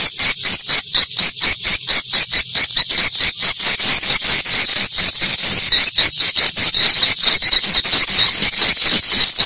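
Swiftlet twittering calls: a continuous, loud, high-pitched chirping, pulsing about four times a second.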